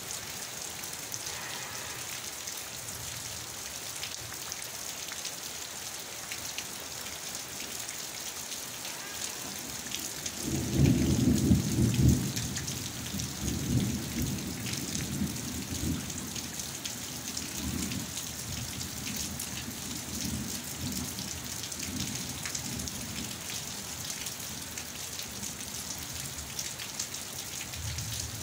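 Steady monsoon rain throughout. About ten seconds in, a loud clap of thunder rumbles in, strongest for a couple of seconds, then fades away in uneven rolling swells over the next ten seconds or so.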